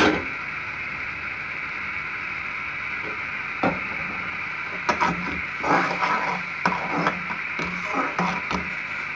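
A metal slotted skimmer knocking and scraping against a metal pan as tomato purée is stirred, in irregular taps from about three and a half seconds in, over a steady hiss. A sharp click at the very start.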